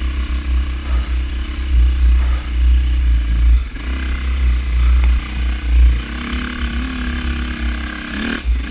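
Dirt bike engine running in low gear on a steep, rough climb, with the throttle blipped up and down and the bike rattling. A short rev rises about eight seconds in.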